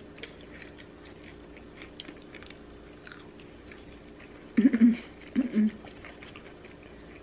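Close-up mouth sounds of someone chewing a breaded fried cheese curd: soft wet clicks and smacks. Two brief voiced hums come about two-thirds of the way in.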